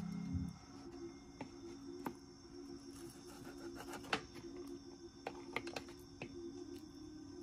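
Music cuts off about half a second in, then a handful of light, sharp clicks and taps, as of small objects being handled and set down, about seven in all, over a faint steady hum.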